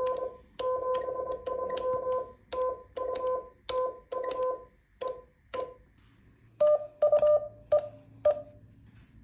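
Morse code sidetone of about 500 Hz keyed from a paddle key, each element starting with a sharp click, sending the sign-off of a contact (73, TU). After a pause of about a second, a slightly higher-pitched Morse tone with loud key clicks answers 'TU' and two short dits (E E), the customary close of a CW contact.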